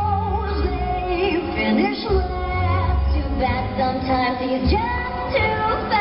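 A song with a female singing voice over a strong bass line, played over the stage's sound system for a performance.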